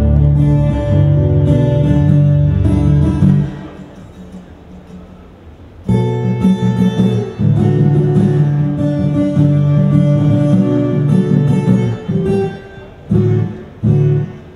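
Guitar chords played in short runs for a sound check: about three and a half seconds of playing, a pause, about six more seconds, then two short stabs near the end.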